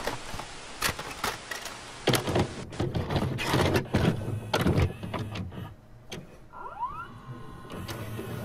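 Videocassette recorder mechanism loading a tape: a string of clicks and clunks, then a short rising motor whine about seven seconds in, over a hiss that fades in the first couple of seconds.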